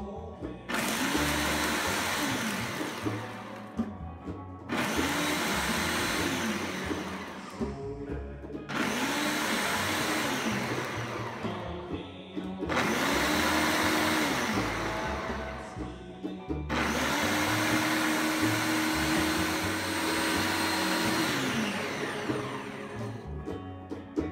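Ninja blender running its automatic margarita program in five pulses separated by short pauses. The motor spins up and winds back down each time, and the last pulse is the longest.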